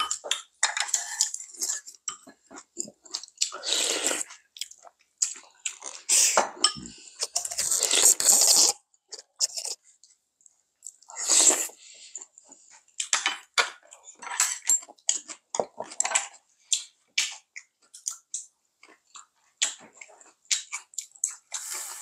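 Close-up eating sounds: irregular chewing and crunching of food, with short clicks of chopsticks and spoons against bowls and a few longer slurping or blowing noises.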